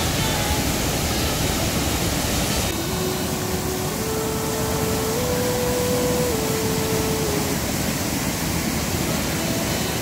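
Steady rush of a rocky mountain stream. From about three seconds in, a few held notes that step up and down in pitch sound faintly over it for about four seconds.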